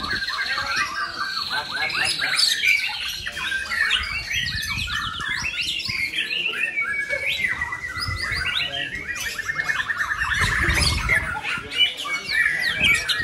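Several caged white-rumped shamas (murai batu) singing at once, a dense, unbroken run of varied whistles, trills and fast repeated notes.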